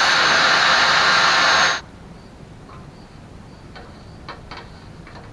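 A power tool runs with a steady whir, then cuts off sharply about two seconds in. After it, a few faint clicks and taps follow.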